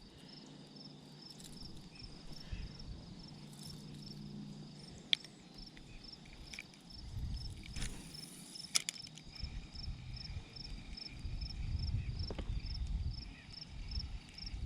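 An insect chirping in a steady high rhythm, about two chirps a second, over a faint, uneven low rumble. A sharp click comes about five seconds in and another pair near nine seconds.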